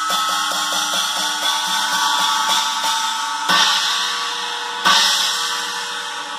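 18-inch Paiste 2000 Sound Reflections china cymbal played with a drumstick: a fast even run of strokes, about five a second, over its ringing wash, then two louder crashes about three and a half and five seconds in.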